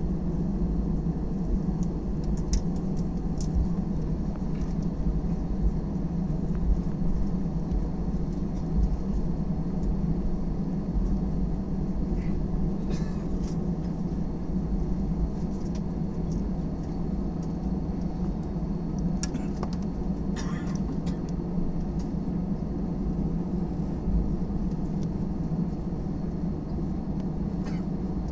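Steady low rumble of an airliner cabin with the jet engines running, even throughout, with a few faint clicks and rattles.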